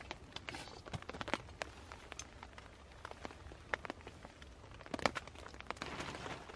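Raindrops and drips ticking irregularly on a tarp overhead, faint, with a few sharper ticks about five seconds in.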